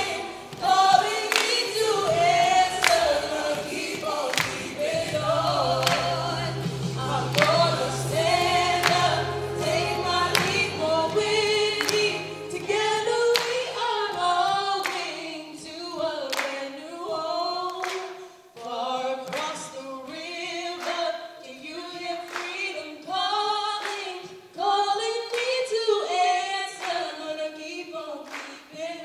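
Women's voices singing a cappella as a group, with sharp hand claps keeping a beat about once a second.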